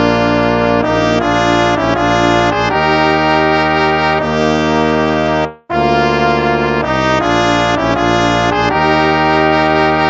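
Instrumental hymn played in a brass-ensemble sound, sustained chords moving phrase by phrase, with a brief break just past the halfway point before the next phrase begins.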